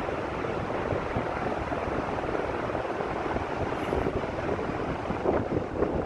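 Wind gusting on the microphone over the rush of ocean surf, with no distinct events; a little louder near the end.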